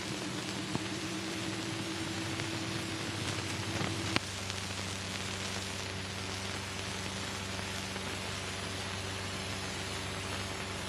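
Steady hiss and low hum of an old film soundtrack with no narration or music. About four seconds in there is a sharp click, and after it the hum changes.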